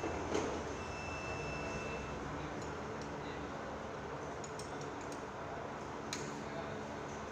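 Steady workshop background noise with a few light clicks and taps from hand tools working on motorcycle parts.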